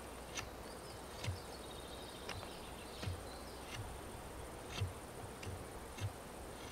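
Knife blade cutting into a bark-covered stick in short carving strokes, a soft click about once a second. A steady high insect buzz runs behind.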